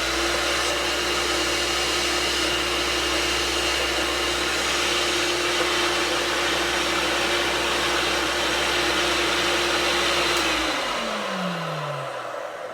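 Vintage Hoover vacuum cleaner's motor switched on for its first run, running steadily with an even hum and hiss. About ten seconds in it is switched off and winds down with a falling pitch. The motor runs so quiet that it does not sound dry.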